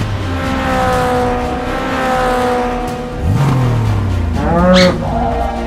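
Cartoon motorbike engine sound effects revving up and falling back, alongside a long held tone near the start.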